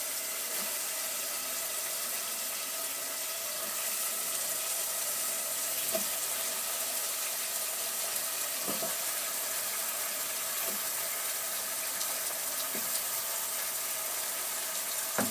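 Steady sizzling hiss of a pot of tomato sauce cooking on the stove, with a few soft knocks as pieces of matoke (green cooking banana) are added to the pot.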